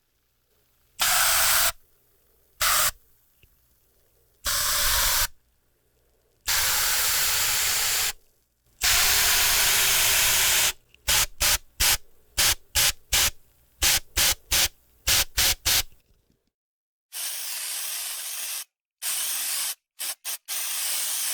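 Spraying under pressure, heard as a series of hissing sprays: several bursts of one to two seconds, then a quick run of about a dozen short puffs, then a softer spray broken up by short puffs near the end.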